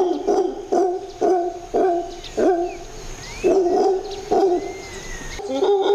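A howler monkey troop giving its territorial howling call: a steady run of deep, pulsing calls, about two a second with a short break midway. Thin bird whistles sound faintly above it.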